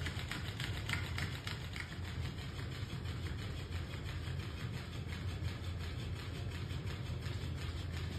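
Steady low mechanical hum, with a few faint ticks in the first two seconds.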